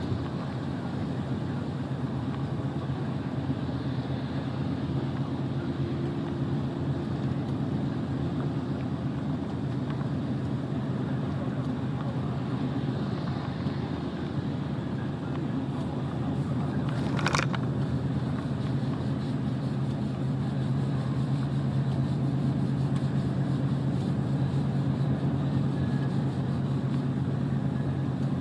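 Heavy truck driving at steady speed: a constant low engine drone with tyre and road noise. A single short, sharp click comes about two-thirds of the way through.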